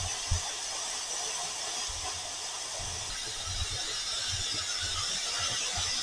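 A steady high hiss of outdoor ambience, with soft low thumps scattered irregularly through it.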